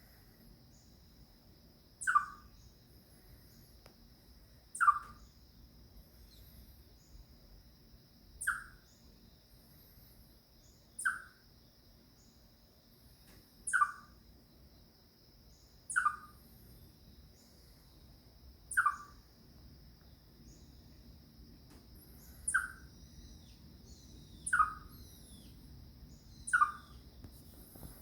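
Chipmunk giving its alarm call: single sharp chirps repeated about every two to three seconds, the cry it makes when it feels in danger.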